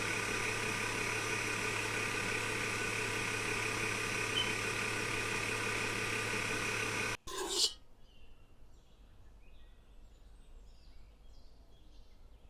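Electric cake mixer running steadily as it beats egg batter, with a steady motor hum. It cuts off about seven seconds in, followed by a brief noise and then near quiet.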